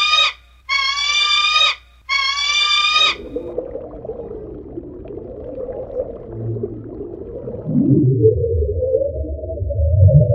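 A falcon's long, high cry, heard three times, the first already underway. A low rumble follows, and then, from about eight seconds in, loud low calls that swoop up and down like a narwhal's or whale's.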